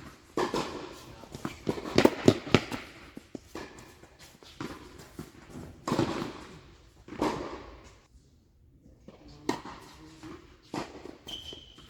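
Tennis rally: sharp racket strikes and ball bounces at irregular intervals, each with a short echo, with a brief high squeak near the end.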